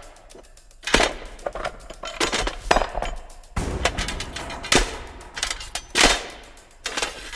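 Old wooden pulley blocks and rusty iron hooks and fittings are handled and knocked against one another. The result is a run of irregular wooden knocks and metal clanks, roughly a second apart.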